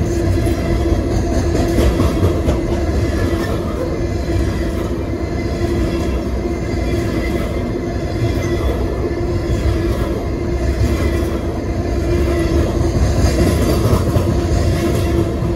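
Coal hopper cars of a freight train rolling past at close range: a steady, heavy rumble of steel wheels on rail with a constant tone running through it.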